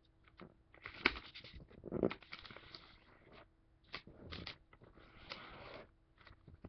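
A sheet of origami paper rustling and crinkling as hands fold and crease it, in irregular bursts with sharp crackles, the loudest about a second and two seconds in.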